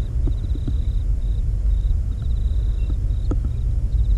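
A low steady rumble, with insects chirping in short repeated trills high above it and a few faint ticks.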